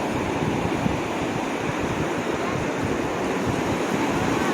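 Steady wash of surf on a beach, with wind buffeting the microphone.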